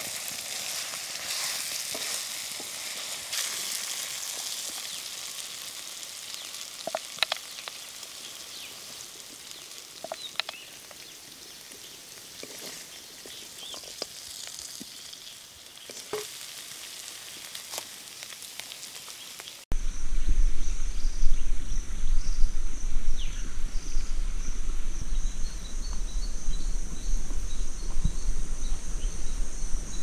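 Mutton pieces sizzling in a kadai while a spatula stirs and scrapes them, with scattered clicks; the sizzle fades slowly. About two-thirds of the way through it cuts to a louder, steady chirring of insects over a low rumble.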